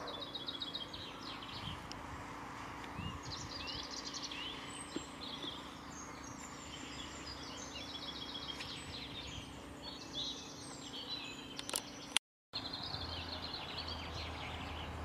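Several small songbirds singing and chirping, with rapid trills and quick runs of high repeated notes, over a faint steady hum. The sound cuts out completely for a moment about twelve seconds in.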